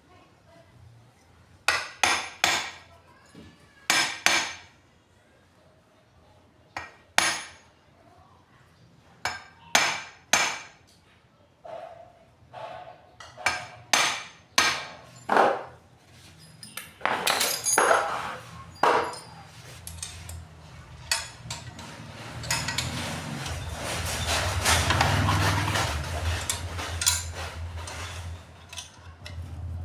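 Hammer tapping on metal parts of an electric water pump: irregular sharp knocks, single and in pairs. Near the end they give way to a denser, steadier rough noise with a low hum for several seconds.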